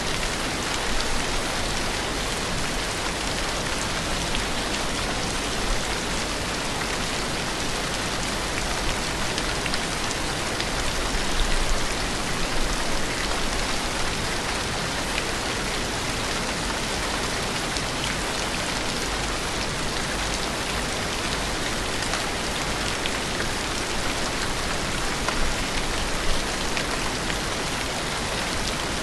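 Steady rain falling, an even, unbroken hiss of rain with fine drop ticks and no pauses.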